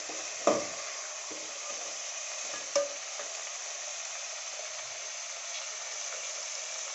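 Chopped green tomatoes sizzling as they fry in oil in an aluminium pot while a metal ladle stirs them. Two sharp clinks of the ladle against the pot come, one about half a second in and one near three seconds.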